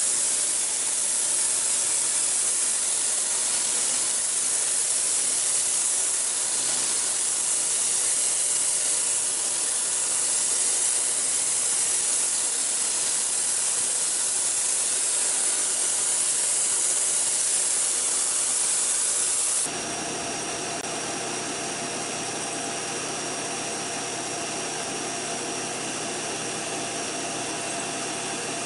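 High-pressure washer spraying water onto concrete with a loud, steady hiss. About two-thirds of the way through the spray cuts off suddenly, leaving the washer's motor running with a steady hum and whine.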